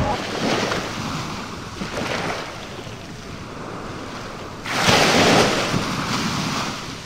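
Choppy sea water washing and splashing, with wind buffeting the microphone. A louder surge comes just under five seconds in and lasts about a second.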